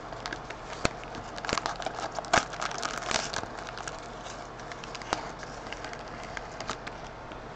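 Wrapper of a sealed trading-card pack crinkling and crackling as it is torn open and the cards are pulled out, in irregular small crackles that are busiest in the first few seconds and then thin out.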